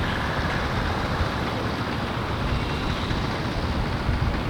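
Deutz F3L514 tractor's air-cooled three-cylinder diesel and the Claas Super pull-type combine it drives, running steadily while threshing wheat.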